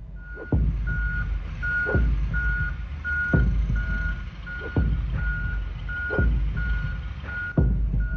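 Forklift reversing alarm beeping steadily, about three beeps every two seconds. A deep thud comes about every second and a half and is the loudest sound, over a hiss that stops near the end.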